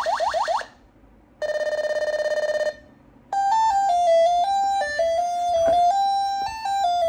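Kacon industrial alarm speaker (Korean-made, 12/24 V) playing its built-in alarm sounds. First a quick run of rising whoops, then after a short gap a fast-pulsing steady tone lasting about a second. After another gap, from about three seconds in, an electronic melody of beeping notes stepping up and down.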